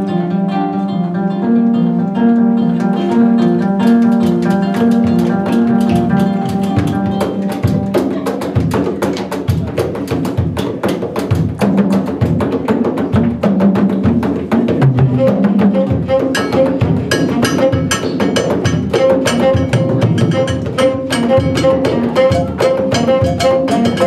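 Live band music: a kora plucks a repeating figure over double bass, and hand drums come in, growing busier and more prominent from about halfway through.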